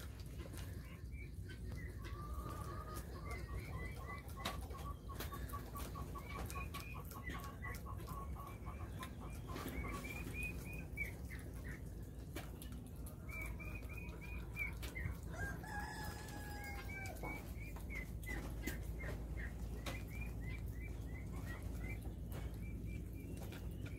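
Chickens clucking in runs of quick repeated notes, and a rooster crowing once a little past the middle. Faint clicks run underneath.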